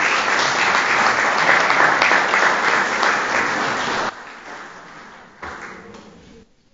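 Audience applauding, dense and loud. It drops off sharply about four seconds in and thins to fainter scattered sound that fades near the end.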